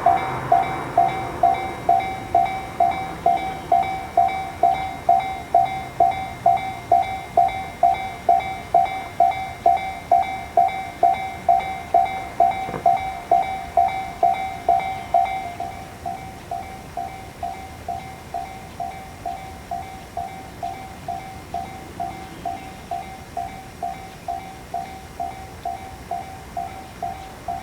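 Japanese railway level-crossing alarm ringing its 'kan-kan' warning, an even clang about twice a second, with the noise of a passing train fading out in the first second. About halfway through, the alarm drops in level.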